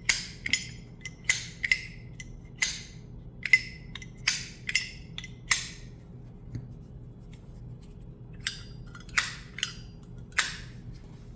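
Solid steel Zippo lighter's lid flicked open and snapped shut again and again: a run of sharp metallic clicks, each with a short ring. There is a pause of about three seconds in the middle, then four more clicks. The ring is muted, without much echo.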